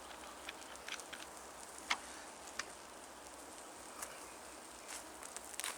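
Campfire crackling: scattered sharp pops and ticks, the loudest about two seconds in and a few more close together near the end, over a faint steady hiss.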